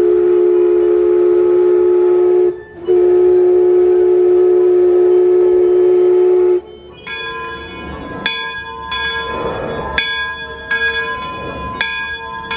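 A steam whistle blows two long, loud blasts, each sounding two notes together, with a short break between them. After the whistle stops, a bell is struck several times at uneven intervals, ringing on.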